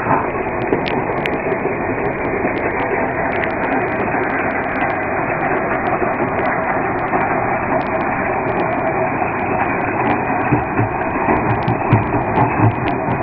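Stone-crushing and sand-making plant running: a steady, loud mechanical din from the crushing machinery and conveyor belts, with heavier knocking thuds in the last few seconds.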